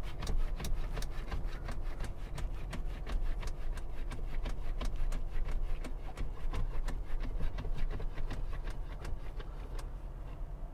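Rapid, even ticking inside a 2023 Peugeot Landtrek's cabin, about four to five clicks a second, over a faint steady hum. The ticking keeps going and dies away near the end.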